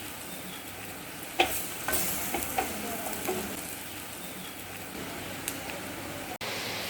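A spoon scraping and clinking in a pan as cooked, grated beetroot stir-fry is scooped out to serve, over a steady sizzle of hot oil in the pan.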